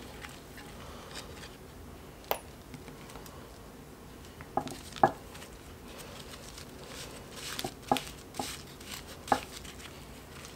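Scattered light metal clicks and knocks, about seven over several seconds, as gloved hands work the top plate casting loose from a vintage Kagen ring roller (ring stretcher), with faint rustling of plastic sheeting between them.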